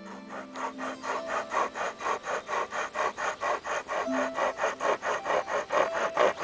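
Hand-pulled pocket chainsaw (a flexible toothed chain worked with paracord wrist loops) sawing through a small log, in quick even back-and-forth strokes of about four or five a second.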